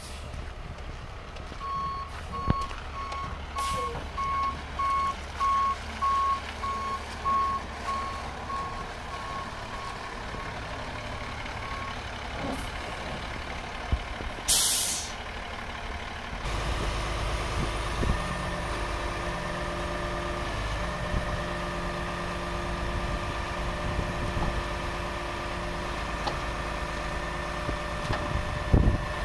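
Medium-duty truck's reverse alarm beeping about one and a half times a second for roughly ten seconds while the truck backs up, then a short sharp hiss of the air brakes being set. After that the truck's PACCAR PX-8 diesel engine runs steadily at idle with a steady whine over it.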